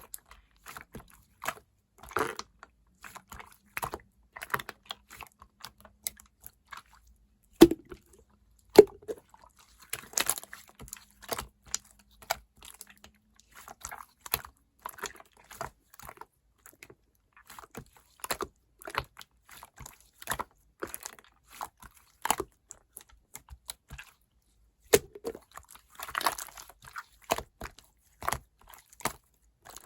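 Mixed clear slime being squeezed and pressed by hand, giving off irregular sticky clicks and small pops, with two louder pops about eight and nine seconds in.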